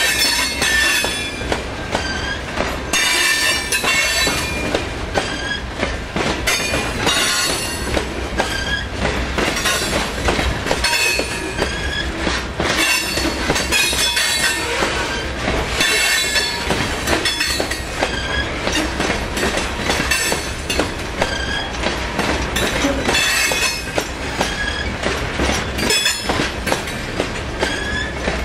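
Freight train cars rolling past on steel wheels, with a steady low rumble, clicking over rail joints, and high-pitched wheel squeal coming and going.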